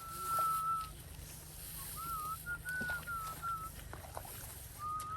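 A clear whistled tone that wavers up and down in pitch, in short phrases, over a steady low hum.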